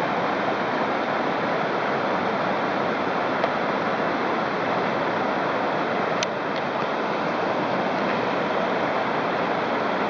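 River water rushing steadily over shallow rapids, with one brief click about six seconds in.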